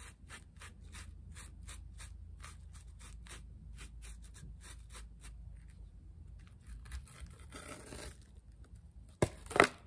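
A tool scratching across foam board in quick repeated strokes, about three a second, with a longer scrape later on. A loud, sharp burst of noise comes near the end.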